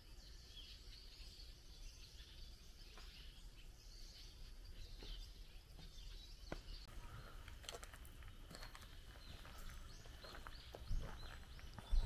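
Faint outdoor forest ambience: small birds chirping and calling at intervals over a low steady rumble, with two short thumps near the end.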